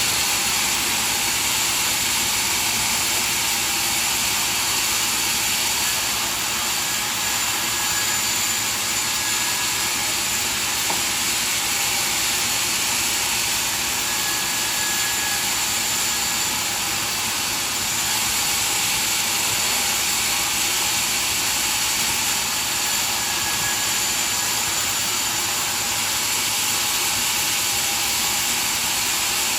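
Sawmill machinery running steadily: a continuous, even, hissing machine roar with no pauses or impacts.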